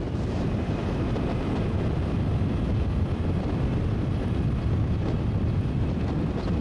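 Steady wind rush on the microphone of a moving motorbike, mixed with its engine and road noise.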